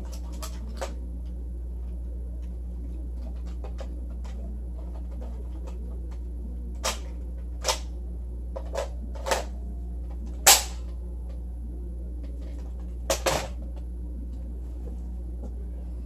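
A handful of sharp knocks and clicks in the second half, the loudest one about ten and a half seconds in, over a steady low hum.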